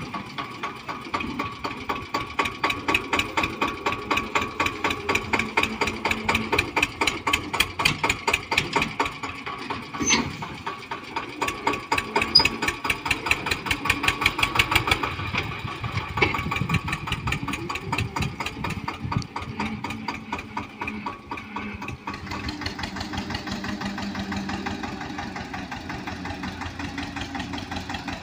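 Eicher 242 tractor's two-cylinder diesel engine chugging under load as it pulls a trolley piled with paddy, a steady pulsing beat of exhaust puffs. It grows fainter and smoother after about twenty seconds as the tractor moves away.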